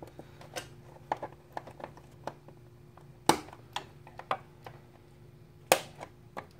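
Plastic push-pin fasteners on a 2015 Yamaha R1's front fairing clicking as their centres are pressed in: a string of small clicks, with two louder snaps about three seconds in and near the end.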